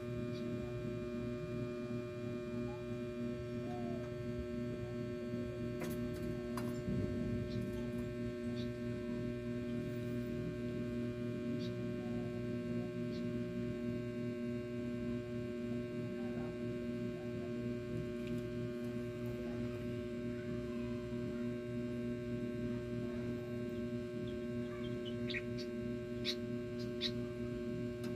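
A steady electrical hum, made of several even tones, holds at one level throughout. A few faint short high chirps or ticks sound over it, a handful of them close together near the end.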